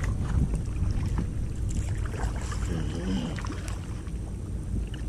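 Steady wind rumbling on the microphone out on open water, with light scattered splashes and knocks from kayak paddling.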